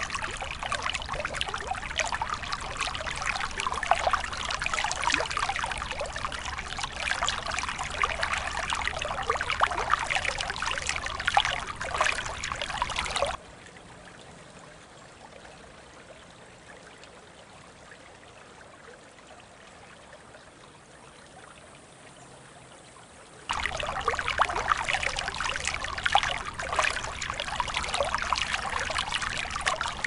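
Small creek trickling and babbling steadily. About a third of the way in it drops suddenly to a much fainter hush for about ten seconds, then the louder trickling comes back.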